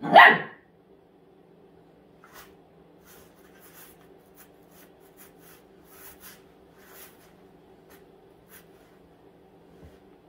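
A golden retriever puppy gives one short, loud bark, then faint scratching and rustling as it chews and shifts among blankets and soft toys, over a low steady hum.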